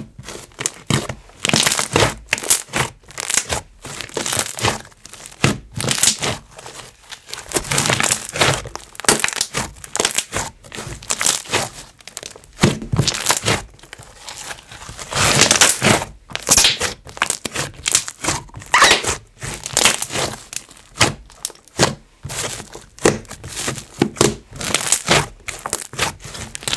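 Clear slime being stretched, pressed and squished by hand, giving rapid sticky crackles and bubble pops in close succession.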